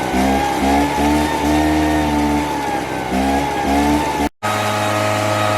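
Craftsman 46 cc two-stroke gas backpack leaf blower running, its engine revved up and down in a quick series of throttle blips. A little over four seconds in it holds a steady pitch.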